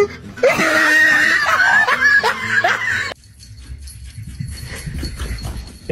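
A person laughing loudly for about three seconds, then an abrupt cut to much quieter room sound with faint light taps.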